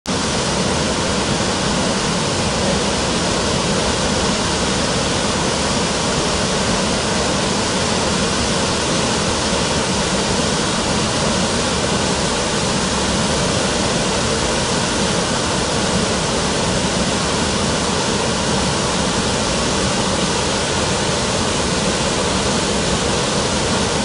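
Wide, stepped waterfall pouring over rock ledges into a pool: a loud, steady rush of falling water.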